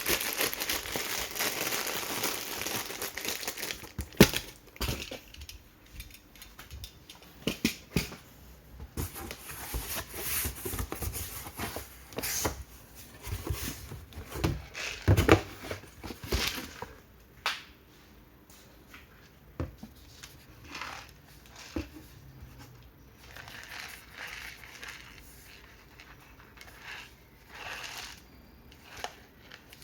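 Plastic snack packaging crinkling and rustling as it is handled, with irregular sharp crackles and taps. The crinkling is dense for the first few seconds, then sparser, quieter rustles.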